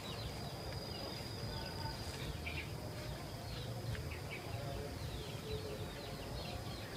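Outdoor wildlife ambience: many short, quick bird chirps scattered over a steady high-pitched insect drone.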